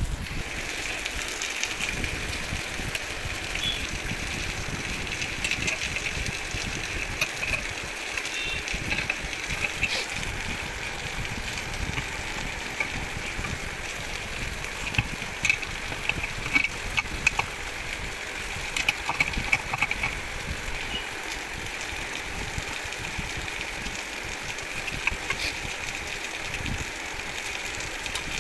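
Light clicks and taps of a screwdriver and bolts on the metal housing as a table fan motor is taken apart, a few of them louder in the second half, over a steady background noise.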